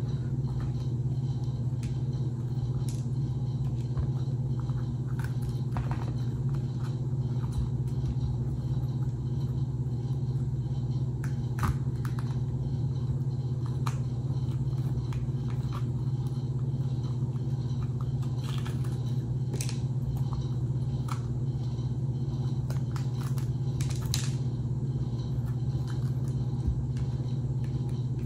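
A steady low hum with several fainter overtones, with scattered light clicks and scrapes from hands working jalapeño peppers open and scooping them out.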